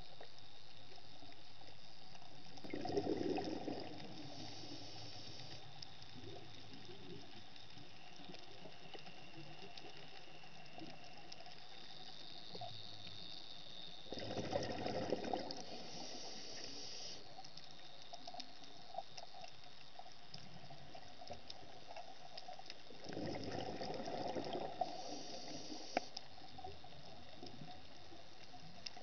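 Underwater ambience: a steady hiss with scattered faint clicks, broken three times, roughly ten seconds apart, by a louder rushing burst lasting a second or two.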